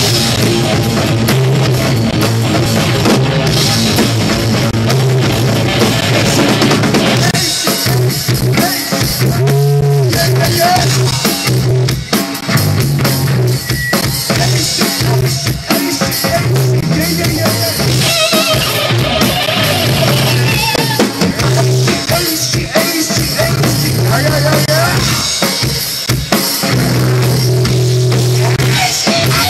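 Rock trio playing live: electric guitar, bass guitar and drum kit. The full band plays densely at first, thins to a sparser passage led by bass and drums for most of the middle, and comes back in full near the end.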